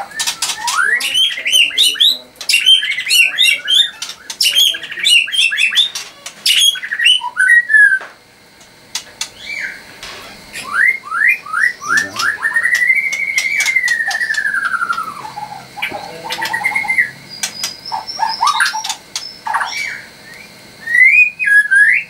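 White-rumped shama singing: a fast, varied run of chirps, trills and sharp clicks, then after a short pause one long whistle that rises and falls, followed by more short phrases.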